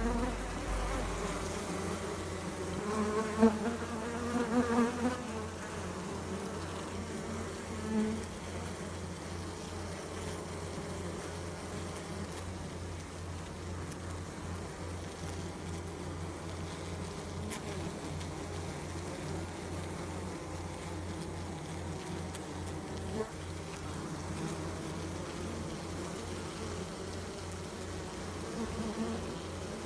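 Bees buzzing with a steady wingbeat drone. A few seconds in, one bee comes close, and its buzz grows louder and wavers in pitch before it fades back into the hum.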